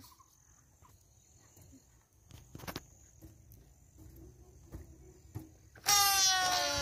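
A long modelling balloon let go, air squealing out of its open neck as it flies off: a loud squeal that starts about six seconds in, its pitch slowly falling. Before it, only a faint steady high insect trill and a few soft rustles.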